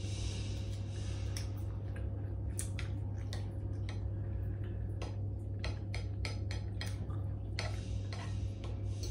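Metal fork and plastic spoon clicking and scraping against a ceramic bowl while eating, in short irregular taps, over a steady low hum.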